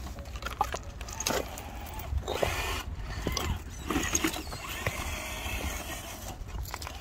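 Traxxas TRX-4 Defender RC crawler's electric motor and gearbox whining in short, uneven bursts as it drives over rock, with scattered clicks and scrapes from the tyres and chassis on the stone.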